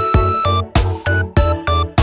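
Background music: a bouncy electronic track with a steady, quick beat, bass and bright synth notes.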